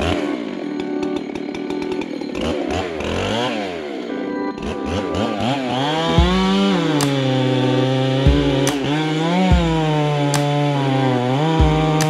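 Two-stroke chainsaw running, its engine speed rising and falling in quick revs for the first few seconds. From about halfway it is held near full throttle, with short dips in pitch.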